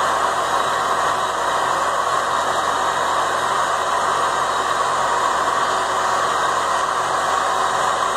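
Steady, even industrial machinery noise in a steel pipe mill, with no knocks or clanks.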